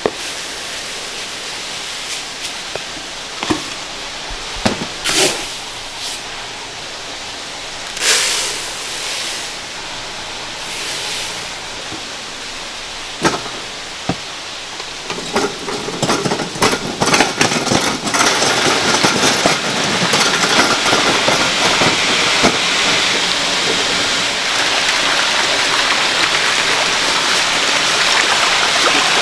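Over a steady hiss, a few short knocks and rattles as dry fish-feed pellets are poured into plastic bowls. About halfway through, loud continuous splashing starts and keeps up: farmed salmon thrash at the surface of a tank as feed is scattered to them.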